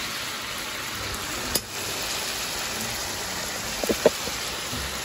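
Meat frying in hot oil in a pan, a steady sizzle, with a sharp click about a second and a half in and two short squeaky pops around four seconds.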